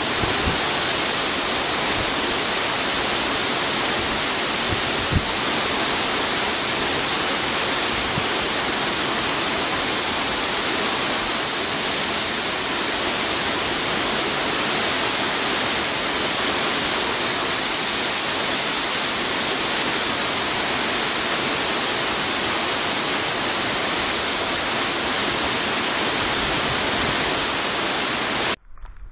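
Waterfall plunging into a pool: a loud, steady rush of falling water that cuts off suddenly near the end.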